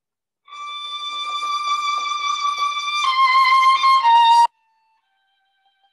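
Solo violin playing a long held high note that swells louder, then stepping down through two lower notes and stopping sharply about four and a half seconds in; a soft note begins again near the end.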